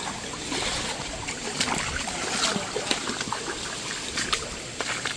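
Water trickling, with many short sharp clicks and knocks scattered through it.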